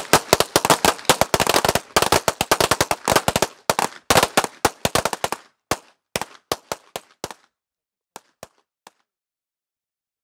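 A line of handguns firing at once: a rapid, overlapping volley of pistol shots that thins to scattered single shots after about five seconds, with a last few faint shots around nine seconds in.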